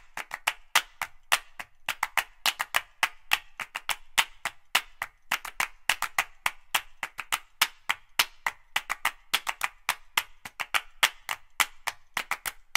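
Fast run of sharp claps in a steady rhythm, about five a second, with no tune or voice over them.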